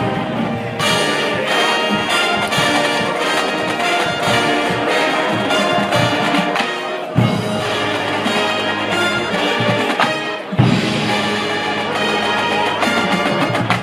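Marching band playing a brass-led piece, with trumpets and trombones carrying the tune over drums. Heavy low accents hit about seven and ten and a half seconds in.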